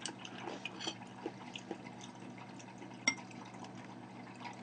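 Quiet eating sounds: metal chopsticks clicking against dishes, with one sharper clink about three seconds in.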